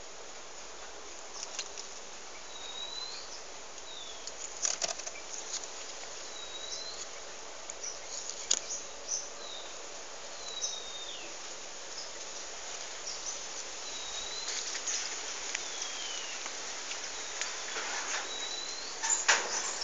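Small birds giving short, thin whistled calls every second or two, some sliding down in pitch and others dipping and rising again. Short scratchy noises break in now and then and bunch together near the end.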